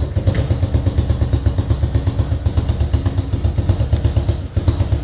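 Honda Biz 125's single-cylinder four-stroke engine running through a Roncar ML sport 'estralador' exhaust: a rapid, even pulsing with a brief dip about four and a half seconds in. The exhaust is fitted without its gasket at the engine joint, which the owner says makes a small compression-leak noise.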